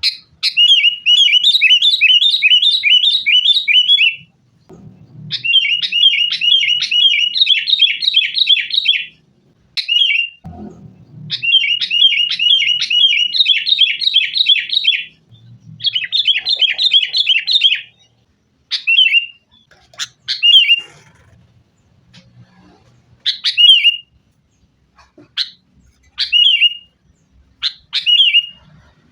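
Sooty-headed bulbuls (kutilang) in a squabbling chatter: long runs of quick, repeated sharp notes, about two to three a second. A little past halfway the runs give way to single short calls a second or two apart.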